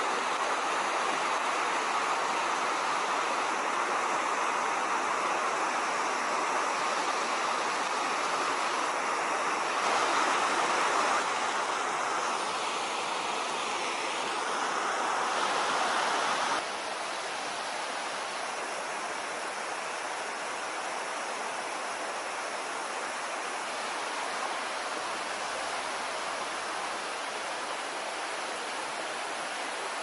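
Steady rushing and roaring of a river's rapids pouring over rock ledges. It gets a little louder for a few seconds, then drops to a quieter rush about two-thirds of the way through as the view changes to another stretch of the falls.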